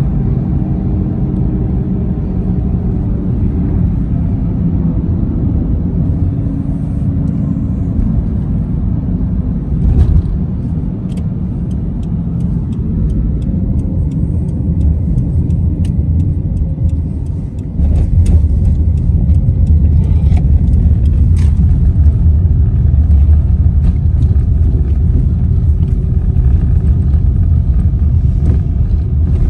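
Car road noise heard from inside the cabin while driving: a steady low rumble of tyres and engine, with a few light clicks. About eighteen seconds in, the rumble grows louder and heavier.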